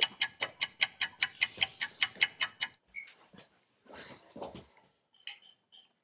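A rapid, regular run of clicks, about six a second, that stops about two and a half seconds in, followed by a few faint scattered sounds.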